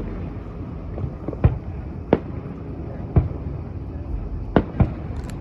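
Aerial fireworks shells bursting: about six sharp booms at uneven intervals, two of them close together near the end.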